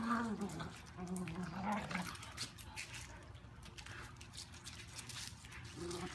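Puppies play-fighting: one gives two short, whiny growling sounds in the first two seconds, then it goes quieter with faint scuffling.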